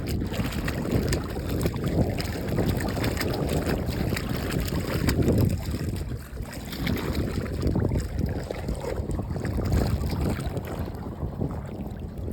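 Wind buffeting the microphone in uneven gusts over open water.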